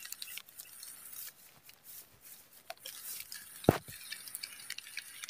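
Light rain: scattered drops ticking at irregular moments, with one louder thump about three and a half seconds in.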